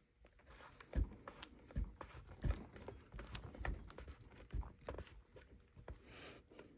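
Irregular light knocks and clicks, about half a dozen spread over several seconds, as of things being handled and set down on a hard surface, with a short breathy hiss near the end.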